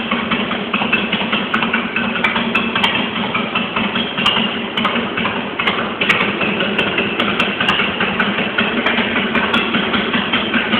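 Carbureted Harley-Davidson 883 Custom's air-cooled V-twin idling steadily through Torbal slip-on mufflers.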